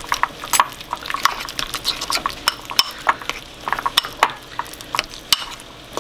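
A metal spoon stirring thick blue cheese and sour cream in a ceramic bowl, clinking and scraping against the bowl in quick irregular strokes.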